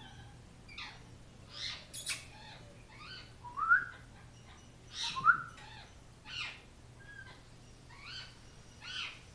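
Parrot giving a run of short chirps and squawks, roughly one a second. The loudest are two quick upward squeaks a little past the middle.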